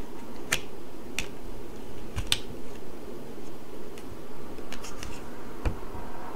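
Tarot cards being handled and laid down: several sharp, scattered clicks and snaps over a steady low room hum.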